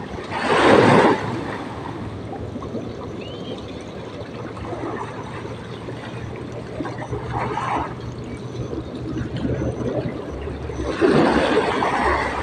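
Seawater lapping and gurgling, with two louder rushes of noise, one about a second in and one near the end.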